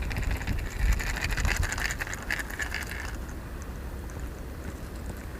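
Baitcasting reel cranked to retrieve a lure, a rapid run of fine clicks and gear whirring that stops about three seconds in, over a low rumble of wind on the microphone.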